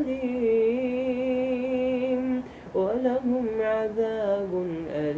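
Qur'an recitation in melodic tartil: a single voice draws out one long sung note with a slight waver for about two and a half seconds. After a short breath it carries on into a second winding melodic phrase.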